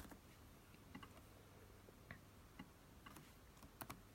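Faint, scattered clicks of computer input, about six soft ticks a second or so apart, the clearest pair near the end, over near-silent room tone.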